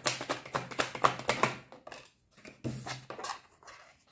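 Tarot cards being shuffled by hand: a quick run of papery clicks for about a second and a half, then a few scattered clicks and flicks.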